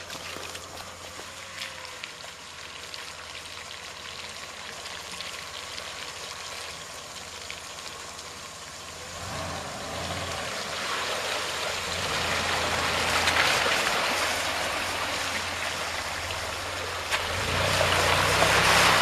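A Mitsubishi SUV's engine running at low revs as its tyres push slowly through a deep puddle, water sloshing and splashing. The sound grows louder from about nine seconds in as the vehicle wades up close, with the heaviest splashing near the end.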